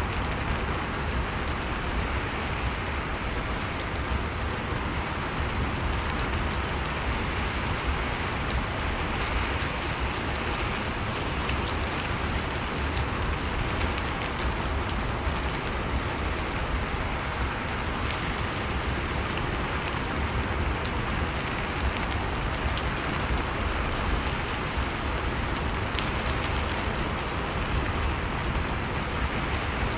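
Steady rain falling, a continuous even hiss with a deep low rumble and faint scattered drop ticks.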